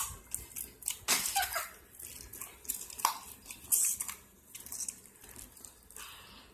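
Stiff, putty-like slime being squeezed and stretched by hand, giving irregular sticky clicks and crackles.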